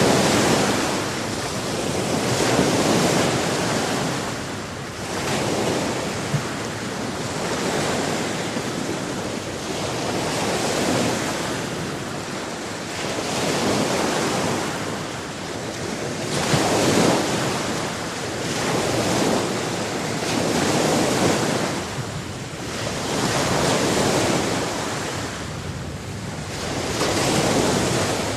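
Sea waves washing onto a shore, a rushing noise that swells and fades about every three seconds.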